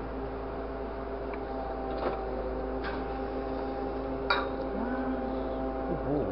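Grapple truck's engine and hydraulics running with a steady multi-tone hum, heard from the operator's cab. A few sharp clicks or clanks break in, the loudest about four seconds in.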